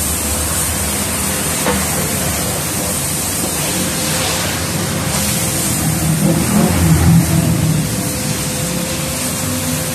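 Steady hiss of water spraying from a hose onto cars, with a thin steady hum underneath and a low rumble swelling about six to seven seconds in.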